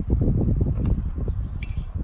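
Low, uneven rumble of wind on the microphone, with two sharp knocks of baseball practice, a ball struck by a bat or landing in a glove, a little under a second in and again about a second and a half in.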